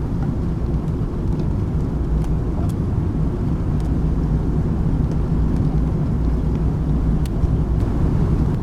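Steady low rumble of outdoor background noise, with a few faint ticks scattered through it.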